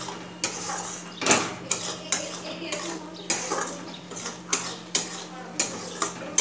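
Spatula stirring and scraping spices into the masala paste in a kadai, a run of irregular clanks and scrapes against the pan, about two a second.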